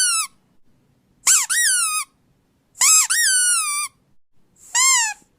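A squeaky dog toy squeezed four times, about one squeak every second and a half. Each squeak starts with a short hiss of air and then rises and falls in pitch.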